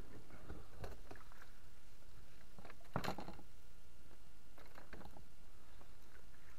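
Scattered knocks and clatter from a loaded plastic sit-on-top kayak being handled at the water's edge, with one sharper knock about three seconds in.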